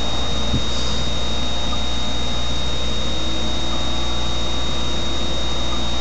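Steady hiss with a low hum under it and a thin, high-pitched whine held at one pitch; nothing else happens.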